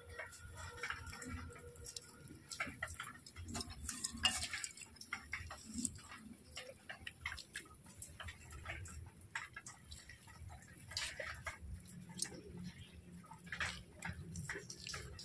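Irregular small clicks and scrapes of a knife and hands working an ash-coated eel while skinning it.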